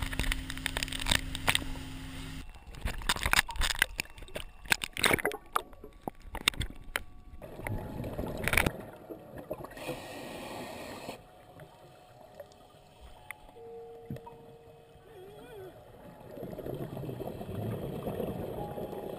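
Dive boat engine running for the first two seconds or so, then a run of sharp knocks and water noise. Then, underwater, the gurgling bubble noise of a scuba diver's regulator exhaling, fading and then rising again near the end.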